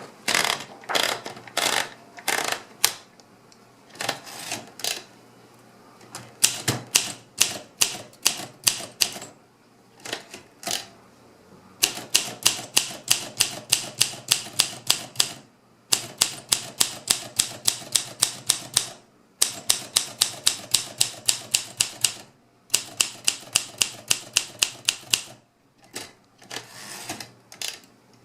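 Olympia SM3 manual typewriter being typed on, with sharp key-strike clicks. The strikes are scattered at first, then come in quick, even runs of about four to five a second, broken by brief pauses.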